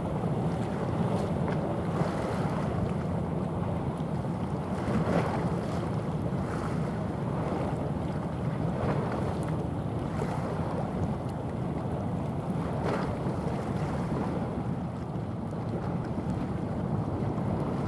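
Small coastal container ship passing close by: a steady low rumble with the wash of its bow wave and wake along the hull, and wind buffeting the microphone.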